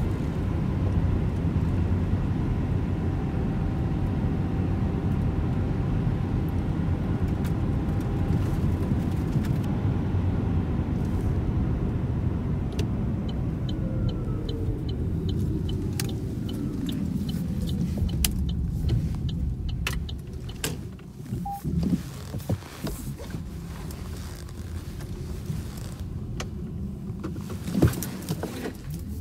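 Opel Mokka-e electric car heard from inside the cabin: steady road and tyre rumble with a faint electric-drive whine. The whine falls in pitch and the rumble fades as the car slows. A run of evenly spaced ticks comes about halfway through, and scattered clicks and knocks follow in the quieter last third.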